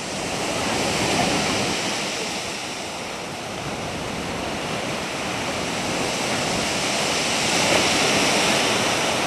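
Sea surf breaking and washing up a pebble beach: a steady rush of water that swells about a second in, eases, then builds again through the second half.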